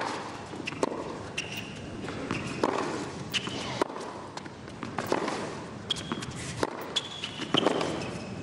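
Tennis rally on a hard court: sharp racket strikes on the ball about once a second, with short high shoe squeaks on the court between them.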